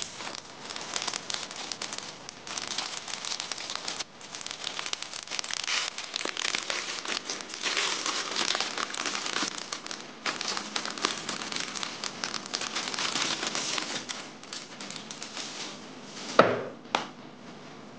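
Plastic packaging crinkling and rustling as a tablet cover is worked out of its plastic bag, with one sharp knock near the end as the cover is set down on a box.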